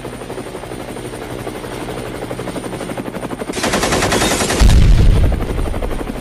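Attack-helicopter and gunfire sound effects: a fast steady chopping pulse, then a louder dense burst of machine-gun fire about three and a half seconds in. A deep explosion boom follows about a second later and rumbles on as it fades.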